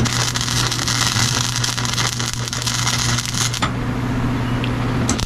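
A welding arc crackling and hissing on car body sheet metal, then breaking off abruptly about three and a half seconds in, over a steady low hum.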